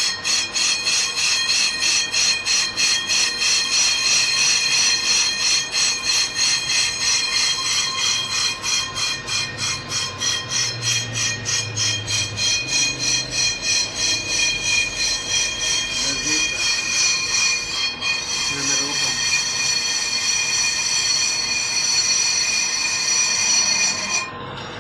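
Car brake disc being skimmed on a lathe, the cutting tool squealing steadily at a high pitch with a pulse about four times a second. The squeal cuts off suddenly near the end.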